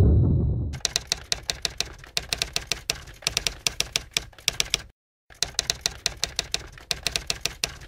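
A typewriter typing sound effect: rapid key clicks, several a second, in two runs with a brief pause about five seconds in. It opens with a low thump that fades over nearly a second.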